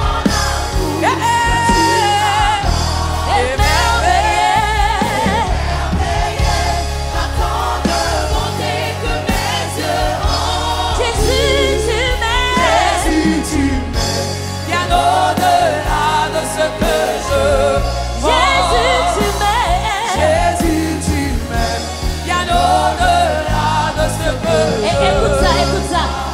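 Live gospel worship music: singers with wavering vibrato over a band with a sustained bass line.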